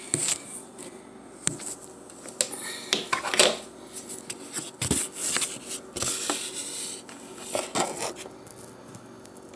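Handling noise of a phone being moved and propped up: irregular knocks, clicks and scrapes of hard objects against each other, with rustling in between.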